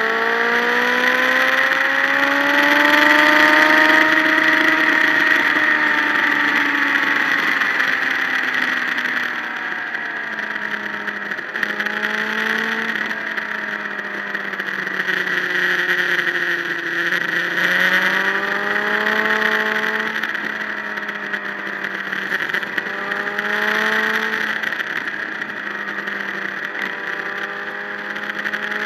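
Motorcycle engine running at road speed, its revs rising and falling several times as the bike rides through bends, under steady wind rush.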